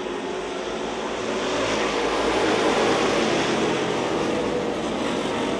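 A pack of street stock race cars running together on a dirt oval, a dense drone of many engines at once that swells about a second and a half in.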